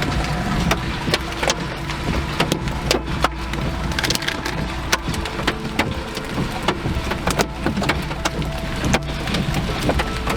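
Many sharp, irregular knocks and clicks, several a second, over a steady low rumble.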